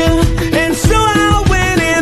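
Background music with a steady beat and pitched melody lines.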